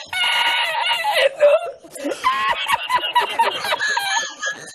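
A man laughing helplessly in a high-pitched cackle, in two long bursts with a short break about two seconds in.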